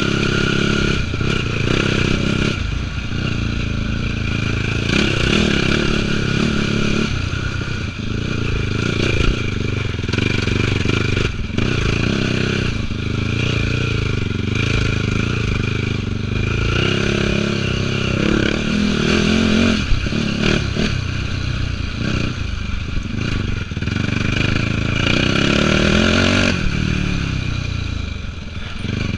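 2004 Yamaha YFZ450 quad's single-cylinder four-stroke engine running hard under way, its revs rising and falling again and again with throttle and gear changes, then dropping off near the end.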